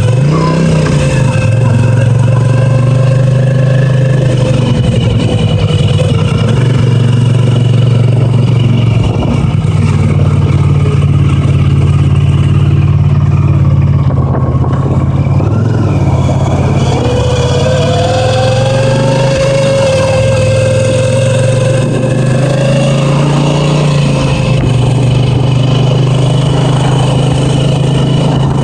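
Honda CX500 V-twin engine running while riding. A thin whine from the faulty speedometer gauge sits over it: it fades out partway, then comes back with a slight rise in pitch.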